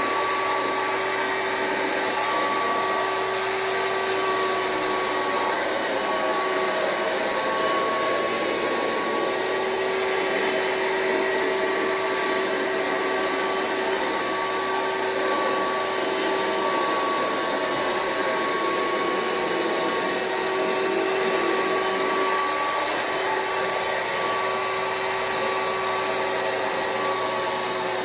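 Rug Doctor carpet extractor running steadily, its vacuum motor sucking cold water and loose dirt out of a mattress through the upholstery hand tool, with a constant whine.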